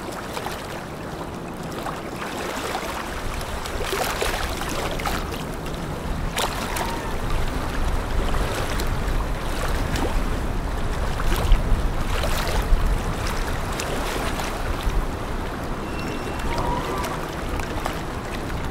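Waterside harbour ambience: a steady rush of water and wind noise with scattered light crackles, under a low rumble that grows stronger in the second half.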